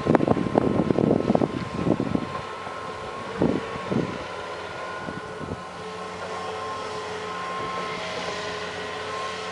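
John Deere excavator working: loud clattering knocks for about the first two seconds and two more around three and a half to four seconds in, then its diesel engine running steadily with a held whine.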